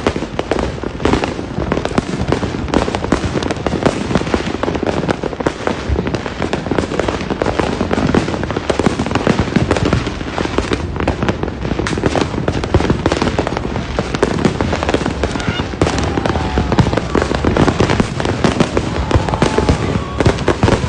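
Fireworks and firecrackers going off non-stop, a dense crackle of many overlapping bangs and pops with no pause.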